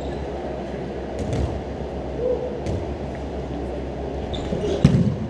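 Dodgeballs thudding on a gym's wooden floor and walls, a few separate hits with the loudest about five seconds in, over a steady low hum of the hall.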